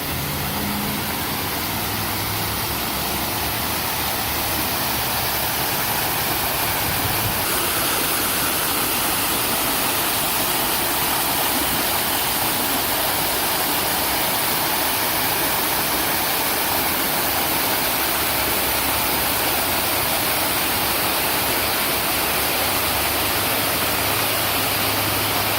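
Waterfall over rocks in a garden: a steady rush of falling water, getting a little louder and brighter about seven seconds in.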